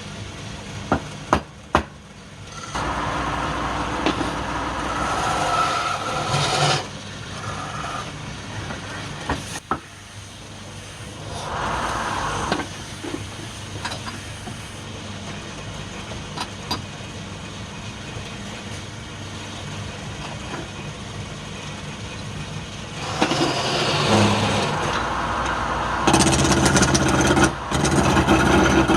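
Wood lathe motor running with a steady hum, while a tool scrapes against the spinning wood in several stretches, the longest and loudest near the end. A few sharp knocks come about a second or two in.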